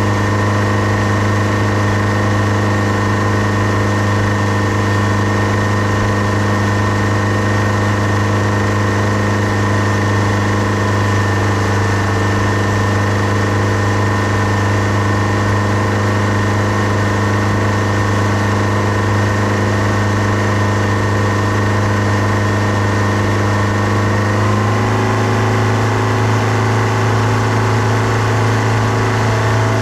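New outboard motor running steadily during break-in, with the fault noise its owner calls a gawd awful noise: a loud, even drone with a strong low hum. The pitch shifts slightly near the end.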